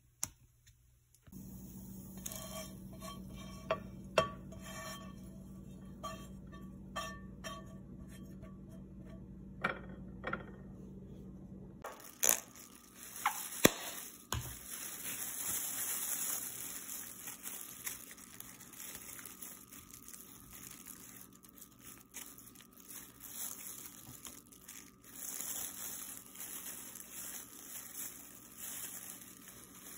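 Kitchen handling sounds: a steady low hum with scattered light clicks for about the first twelve seconds, then a hissy stretch with a few sharp clicks and scraping as a white sauce is squeezed onto a flatbread on a ceramic plate and spread over it.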